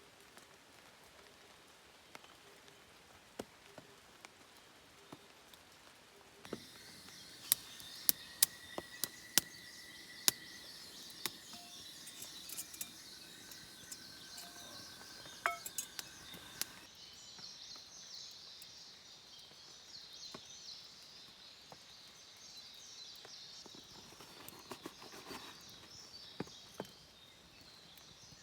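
Forest ambience: small birds chirping with a few short whistled notes, and scattered sharp clicks and taps, loudest a few seconds in and again midway.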